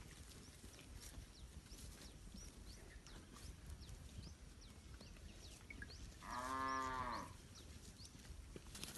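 Village cow mooing once: a single short call of about a second, rising then falling in pitch, a little past the middle, with faint high chirps scattered throughout.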